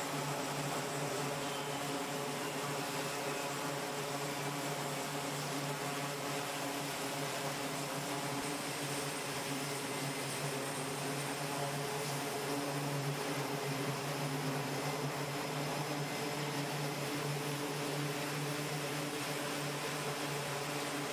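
E-2 Hawkeye turboprop engines running with propellers turning: a steady drone with a low hum and a hiss over it.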